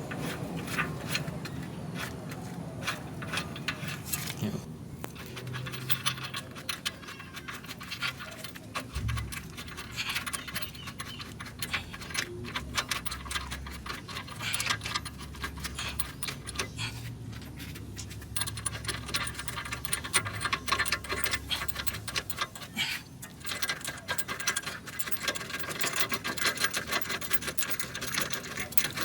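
Hand ratchet clicking in rapid, uneven runs while working fasteners during a rear shock swap.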